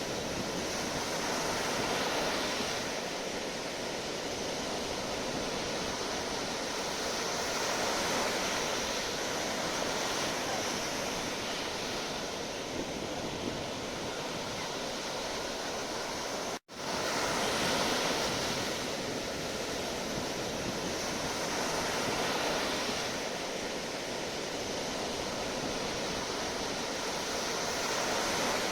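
Sea waves, a steady rushing surf that swells and eases every several seconds. The sound drops out for an instant about two-thirds of the way through.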